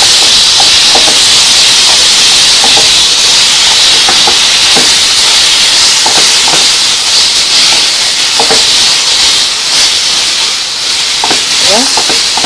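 Toasted bread sizzling loudly in a hot pan as garlic-and-vinegar tomato sauce is stirred through it, a steady hiss with occasional light scrapes of the spoon.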